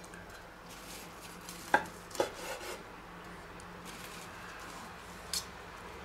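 Kitchen knife slicing through a soft baked Leberkäse loaf on a wooden cutting board, with a few short knocks as the blade meets the board: two close together about two seconds in and one near the end.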